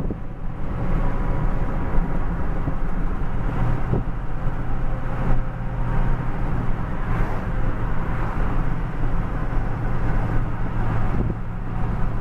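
Inside the cab of a 2005 Ford F-450 diesel dump truck on the move: a steady engine drone with tyre and road noise, and a few light knocks along the way.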